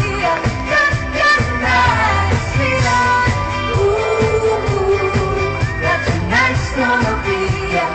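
A pop song performed live: a singer's voice sliding through a melody over a full band with a steady beat.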